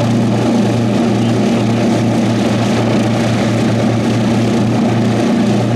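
The twin Allison V-12 engines of a Lockheed P-38L Lightning running at idle on the ground, propellers turning, a steady low drone with a slow, even throb.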